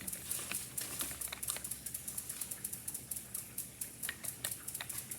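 Rapid, light, irregular clicks and taps from AAA batteries and a small plastic timer being handled.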